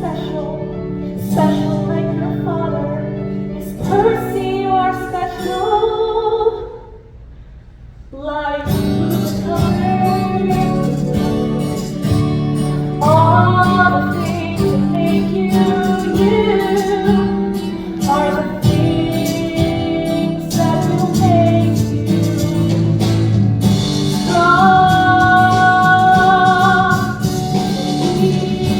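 A woman singing a musical-theatre song over instrumental accompaniment. The music drops away briefly about seven seconds in, then comes back fuller, with long held notes near the end.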